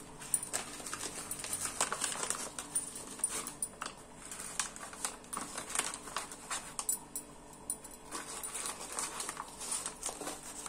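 Light rustling and scattered clicks as rolled socks are handled and pushed into an empty soap carton.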